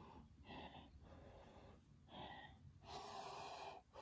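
A person's faint breathing, several short breathy puffs.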